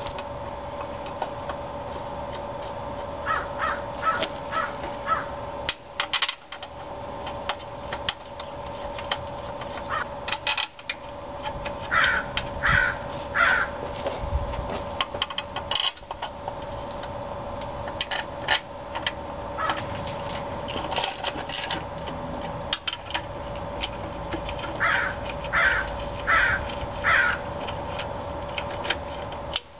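A bird calling over and over in short runs of three or four calls, with occasional clinks and knocks of hand tools and bolts as a bell housing is bolted onto an engine block. A steady faint hum runs underneath.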